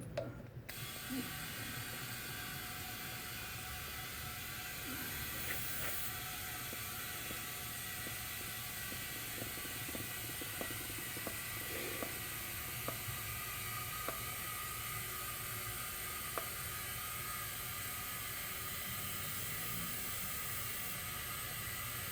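Compressed air hissing steadily through an air hose into a flat car tire, fed from a Porter-Cable 30-gallon compressor's tank while its motor is off. The hiss starts suddenly about a second in, with a few faint clicks.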